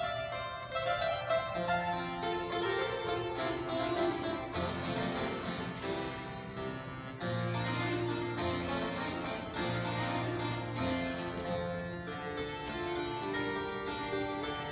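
Harpsichord being played: a continuous passage of quick plucked notes over lower bass notes.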